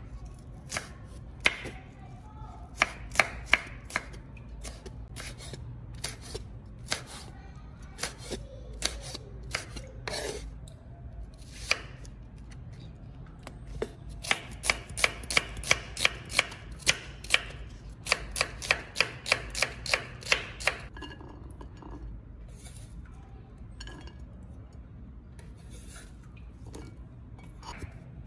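Cleaver chopping garlic, red chilies and ginger on a wooden cutting board: sharp knocks of the blade on the board. They come singly at first, then in fast even runs of about three strikes a second in the middle, and grow sparse and softer near the end.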